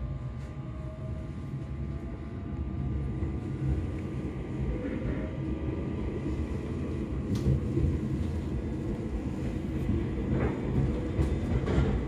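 Electric train heard from inside the carriage, pulling away and gathering speed. The wheels and motors make a low rumble that grows steadily louder, a tone rises in pitch a few seconds in, and a few sharp clacks from the rails come near the middle and toward the end.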